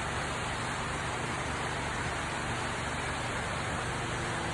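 Engine oil pouring out of the sump drain-plug hole into a drain pan, a steady splashing stream.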